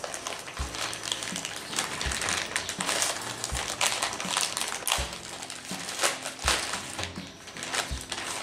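White paper wrapping crinkling and tearing in a steady stream of crackles as a package is unwrapped by hand.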